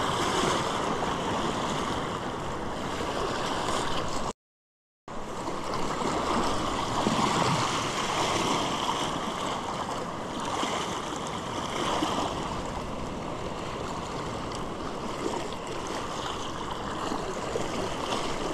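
Sea swell washing and swirling over a rock ledge, a steady rush of surf and foaming water. The sound cuts out completely for under a second about four seconds in.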